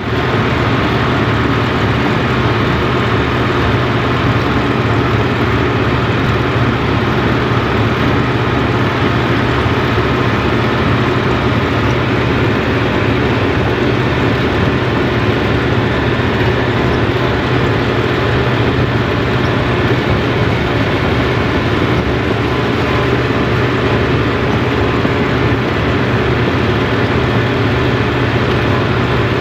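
John Deere 5405 tractor's diesel engine running steadily at road speed, heard from the driver's seat: an unchanging low drone with a noisy rush over it.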